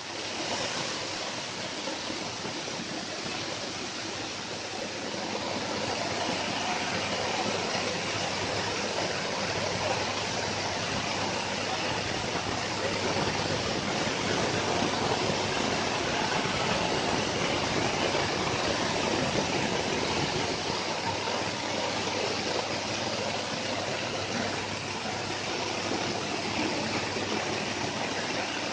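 Stainless steel coffee huller running while hulling dry coffee, a steady rushing noise that grows a little louder after about five seconds.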